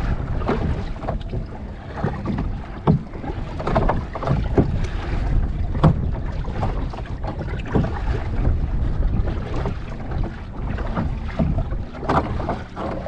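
Kayak moving on the sea, with wind buffeting the microphone and water splashing around the boat in repeated short splashes about a second apart.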